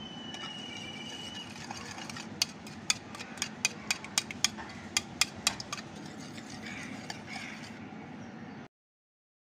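Wire whisk beating eggs and milk in a ceramic bowl, its wires clinking sharply against the bowl about four times a second through the middle, over a steady scraping swish; the sound cuts off abruptly near the end.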